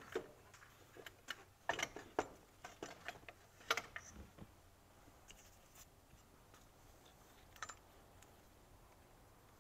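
Light clicks and knocks as the BMW E46's oil filter housing assembly is worked free and lifted out of the engine bay by hand. The clicks come thick over the first few seconds, with one more near the end.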